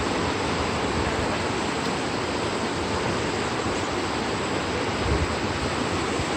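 Steady rushing of a fast-flowing river current, an even noise without breaks.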